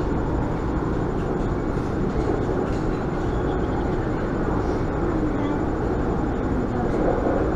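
Steady running noise of an elevated metro train, heard from inside the passenger car while it is in motion.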